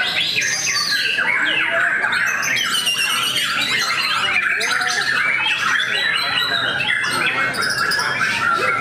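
White-rumped shama singing a fast, varied run of whistles, trills and chatter. Other songbirds sing over it at the same time, making a dense, unbroken chorus.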